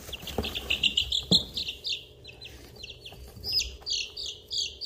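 Chicks about two and a half weeks old peeping, a fast run of short high peeps several a second that grows louder and fuller toward the end. Two soft knocks come in the first second and a half.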